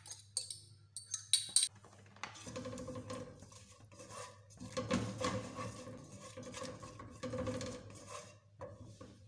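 A few sharp clicks of a spoon knocking against a small bowl as crushed green chillies are tipped out, then a spoon scraping and stirring garlic and chillies in oil around a non-stick pot for several seconds.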